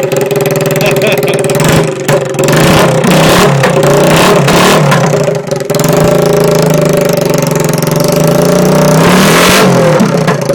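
Honda 70cc quad engine running loud through its muffler with the baffle removed, revved up and down several times.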